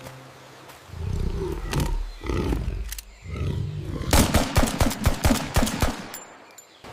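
Cartoon sound effects of a large wild animal growling and roaring, followed about four seconds in by a quick run of sharp knocks lasting about two seconds.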